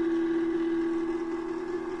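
Small thermal 'cat printer' running, its paper-feed stepper motor giving a steady, even hum as it prints.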